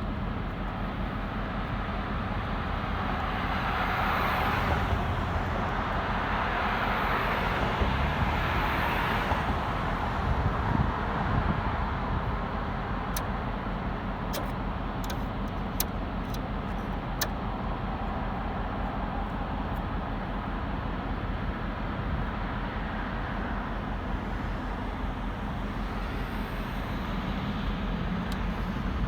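Steady road traffic noise with vehicles passing, swelling twice in the first ten seconds, and a few faint clicks midway.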